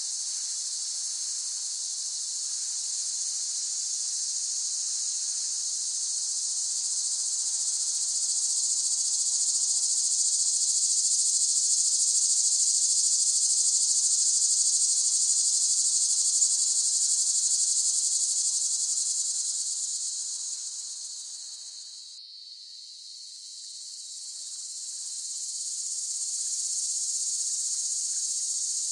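Cicadas buzzing in a continuous high-pitched drone. It swells and fades in long waves, breaks off suddenly and drops to its quietest about two-thirds of the way through, then builds up again.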